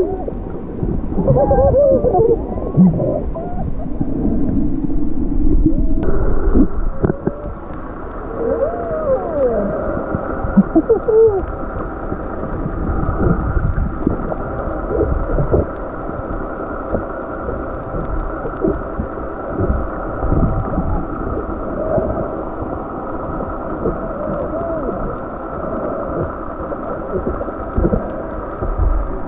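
Muffled underwater sound picked up by a submerged camera: a steady low rumble of water moving and bubbling, with faint wavering tones drifting through it.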